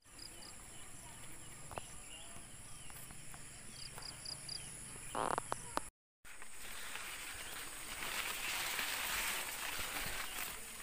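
A steady high insect trill with a few short bird chirps. After a brief cut about six seconds in, a continuous dry rustling and swishing of corn leaves as someone walks through the plants.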